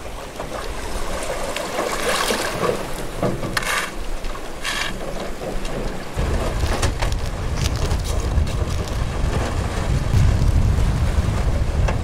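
Drifting river ice floes grinding and crackling against each other in moving meltwater during the spring breakup of the Amur. About six seconds in, a steady low rumble comes in under them.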